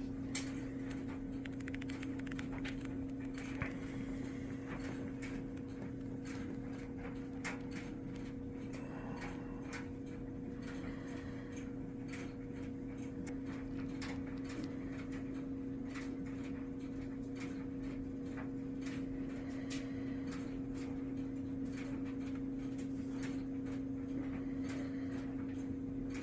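A steady hum holding one pitch throughout, with faint scattered clicks and ticks.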